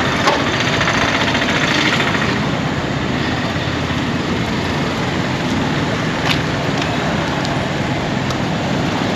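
Steady rushing street noise on the camera's microphone while moving, with a short click about a third of a second in and another about six seconds in.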